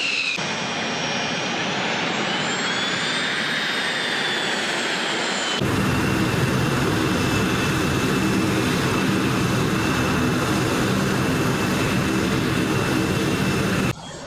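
F/A-18 fighter jet engines: a high whine that rises and then falls in pitch. About five seconds in it cuts abruptly to a louder, steady jet engine noise with a constant high whine over a low rumble, which stops suddenly just before the end.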